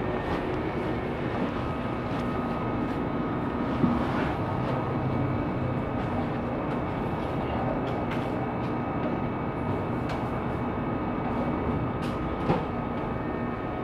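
Steady supermarket background hum, likely from the ceiling ventilation, with a thin steady whine over it. Two short knocks come through, about four seconds in and near the end.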